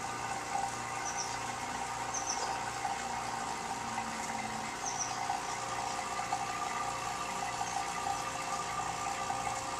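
Steady low hum over even background noise, with a few short, high bird chirps about a second, two seconds and five seconds in.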